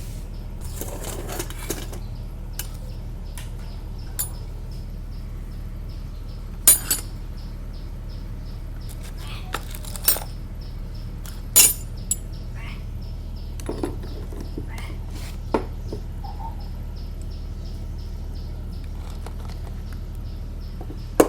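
Metal clinks and taps, scattered and irregular, of steel hand tools and alternator parts being handled and set down on a workbench during reassembly, with a few louder knocks in the middle.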